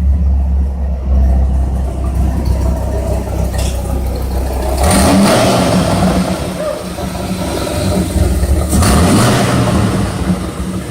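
A vehicle engine running with a steady low hum, rising in two louder surges, about five seconds in and again near nine seconds.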